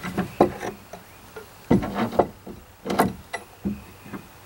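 Irregular knocks and clatter of clamps, boards and hand tools being worked against a boat's new plywood transom while it is clamped in place, with a longer rattle a little under two seconds in.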